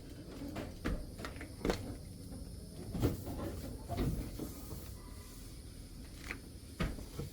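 A string of irregular knocks and clicks, about eight in all, from hard parts being handled and pulled out of a car's interior.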